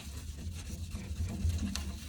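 Paper towel rubbing and scrubbing on a fireplace insert's glass door, faint scratchy strokes over a steady low rumble.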